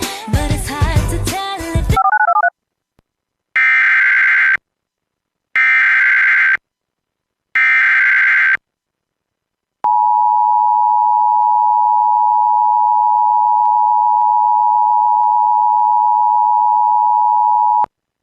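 Emergency Alert System activation: three one-second bursts of SAME header data tones, about two seconds apart, followed by a steady, loud single-pitch attention tone lasting about eight seconds. It is the start of a civil emergency message broadcast.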